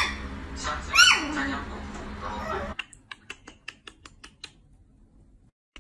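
A small curly-coated puppy giving two short high yips that rise and fall in pitch, one at the start and one about a second in. Its claws then tick quickly on the wooden floorboards as it trots off, about six taps a second, dying away a little after halfway.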